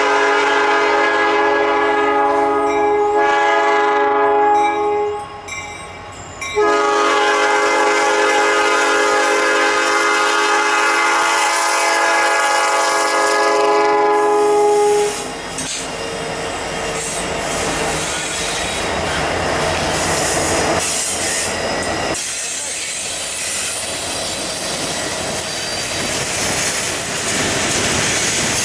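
Norfolk Southern EMD SD70 diesel locomotive sounding its five-chime Nathan P5 air horn in two long blasts for a grade crossing. The horn stops about fifteen seconds in, and the freight cars then roll past with steady wheel noise and clicking over the rail joints.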